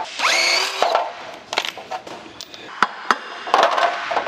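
Cordless impact driver running for under a second to back out a bolt on a rear differential's cover, its pitch rising as it spins up. Then a few sharp metallic clinks and knocks of bolts and the cast housing on an aluminium tray.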